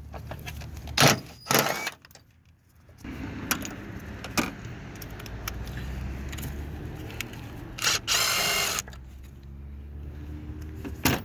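Metal bolts and hand tools clinking and clanking during engine repair work, with two sharp knocks early and a short buzzing, rattling burst of under a second about eight seconds in.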